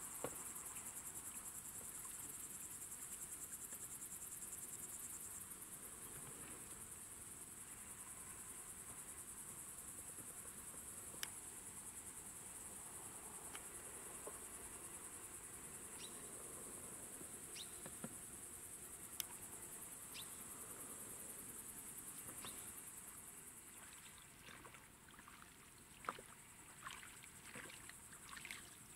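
Steady, high-pitched chirring of insects with a fine rapid pulse, faint throughout, with a few isolated soft clicks. About 24 seconds in, the chirring fades and a run of short splashes and knocks follows: oars dipping and rattling as the inflatable rowing boat is rowed.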